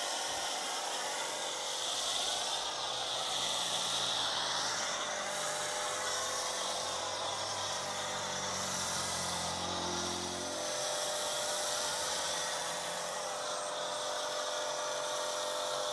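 Pressure washer running with a snow foam lance, a steady hiss of foam spraying onto a car's bodywork over the hum of the washer's motor. A lower hum drops away about ten seconds in.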